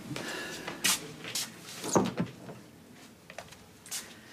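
A room door swinging shut with one sharp knock about two seconds in, with a few lighter clicks and rustles before it.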